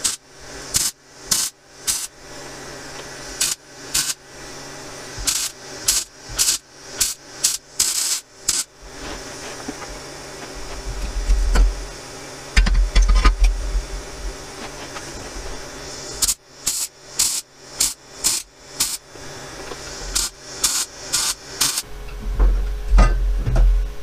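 Electric arc welding on a metal pipe in short pulses: crackling bursts of about half a second each, roughly two a second, in two runs. Between the runs and near the end come heavy low thuds and rumbling as the pipe is handled.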